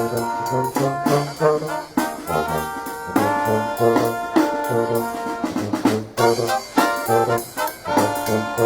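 Live brass band playing an upbeat tune: trumpets and trombones over a pulsing bass line, with drum hits keeping the beat.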